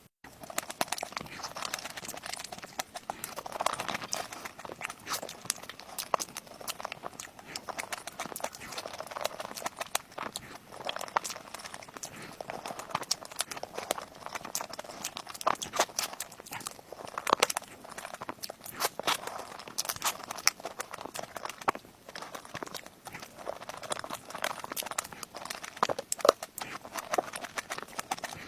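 Eating sounds of cake being chewed: wet mouth noises with many irregular sharp clicks.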